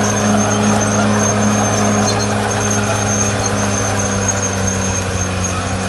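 Caterpillar D6R bulldozer's diesel engine running at a steady, even speed, with a thin, high, steady whine above it.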